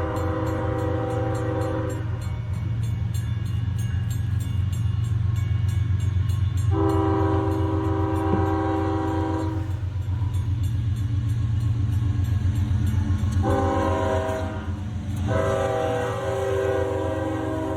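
Freight diesel locomotive's multi-chime air horn, played as the grade-crossing pattern: the end of one long blast, a long blast, a short one and a final long one. Under the horn is the steady low rumble of the moving train.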